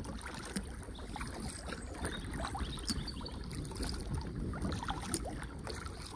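Sea kayak being paddled: water lapping and splashing in many small irregular splashes around the hull and paddle, over a steady low rumble of wind on the microphone.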